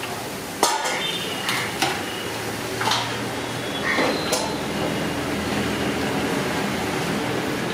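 Besan sev frying in a wide iron kadai of hot oil with a steady sizzle, while a steel skimmer and ladle clank against the pan several times in the first half as the fried sev nest is lifted and turned.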